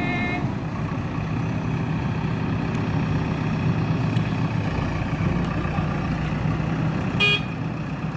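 Diesel engine of a JCB backhoe loader running steadily with a low drone. A vehicle horn gives a brief toot near the end.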